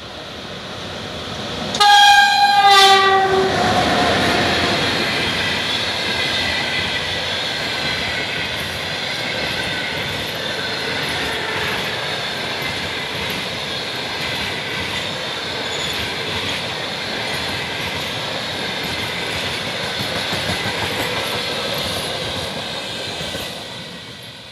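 EP1M electric locomotive sounding its horn about two seconds in, a short two-part blast whose pitch falls as it passes. Then a steady rolling rumble and clatter of a long passenger train's cars running by, which fades near the end.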